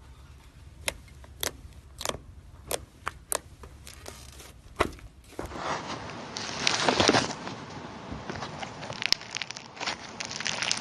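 Slime being played with by hand: a string of sharp pops, a little over one a second, then, after a cut, a dense run of crackling and crinkling.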